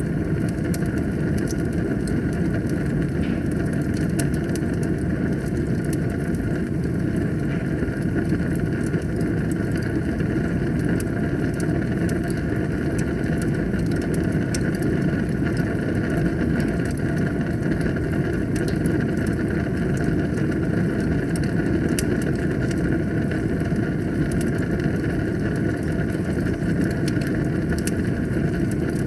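Wood fire burning in a fireplace: a steady low rumble with frequent small crackles and pops.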